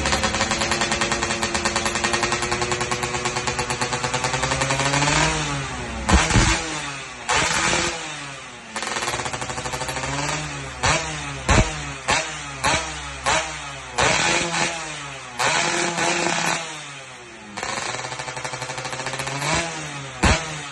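Motorcycle engine idling with an even pulse, then revved in a series of quick throttle blips, the pitch dropping back after each one. It settles back to idle for a couple of seconds near the end before being blipped again.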